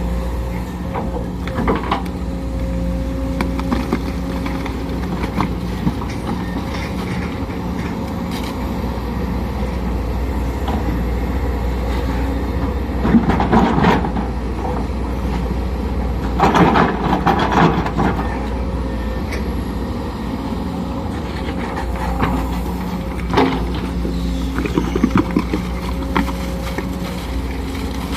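Sumitomo SH210 hydraulic excavator's diesel engine running steadily, with louder noisy stretches about 13 and 17 seconds in and a few short sharp knocks.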